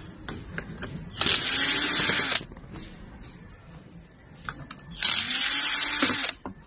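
Electric desoldering gun's vacuum pump running in two short bursts of about a second each, with a whine that rises and falls, sucking solder off the pins of a shorted IGBT and rectifier bridge being removed from the induction cooker board.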